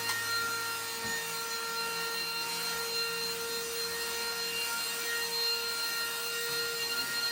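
A small electric motor running steadily, a constant whine over a hiss.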